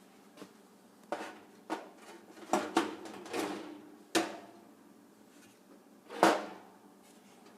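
A run of sharp knocks and clatters from things being handled, with a longer scrape in the middle and the loudest clank about six seconds in.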